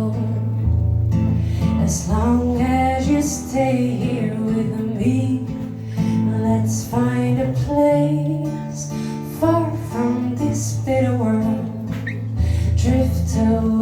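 Live music: a woman singing over guitar, with held bass notes underneath.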